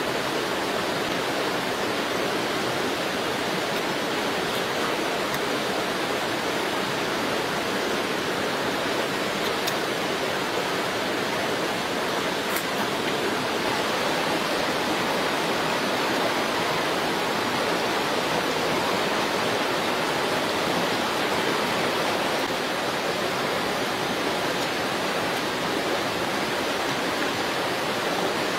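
A steady, even rushing noise like running water, with a few faint ticks.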